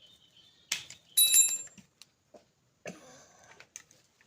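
Drill bits being handled while the last, largest bit is swapped in: a knock, then a metallic clink that rings briefly, followed by faint scraping. The drill itself is not running.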